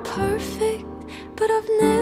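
Soft, slow pop music, mostly instrumental: a held note fades at the start, then a gentle melody of short repeated notes.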